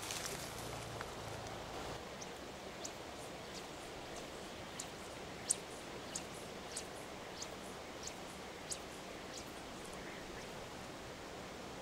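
Steady hiss of a flowing river, with brief rustling at the start. Through the middle comes a run of about ten short, sharp ticks, roughly one every two-thirds of a second.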